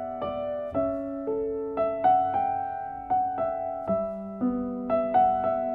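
Background piano music: a gentle melody of single struck notes, two or three a second, each ringing and fading.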